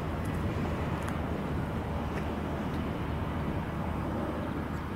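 Class 66 diesel-electric locomotive's two-stroke V12 engine running steadily as it hauls a freight train, a low, even sound with a few steady low pitches.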